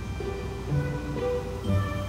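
Background music: a light tune of plucked-string notes over bass notes.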